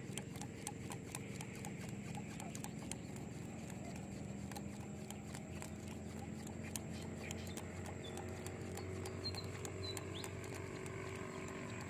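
Outdoor pond-side ambience: sharp, irregular clicks several times a second over a constant high-pitched insect whine and a low steady hum, with a few short bird chirps about nine seconds in.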